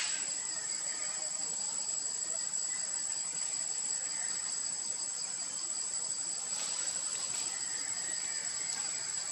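Steady high-pitched insect chorus, with a few faint brief rustles about seven seconds in.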